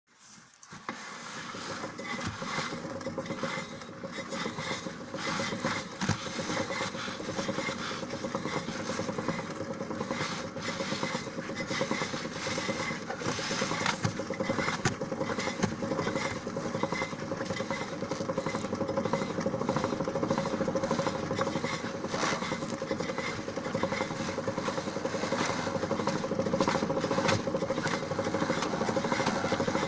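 VAZ 2107 transmission driveline turned through the raised wheel, running with a steady whir and many irregular knocks and clicks. The knock is in the transmission, and its cause is not yet known.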